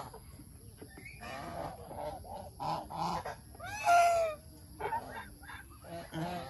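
A flock of domestic geese honking in short, repeated, overlapping calls, with one louder call about four seconds in.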